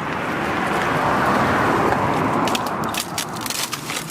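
A car passing by: the rush of its tyres and engine swells to a peak about a second or two in, then fades away. Light crackling clicks near the end.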